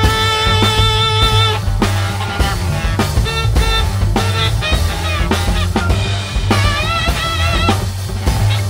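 Live improvised jazz: baritone saxophone playing melodic lines with bending, wavering held notes over walking upright bass, drum kit and electric guitar, with a heavy bass end.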